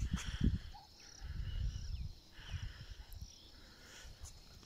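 Open-air ambience: irregular low rumbling of wind buffeting the microphone, strongest in the first two seconds, over a faint, steady, high-pitched chirring of insects.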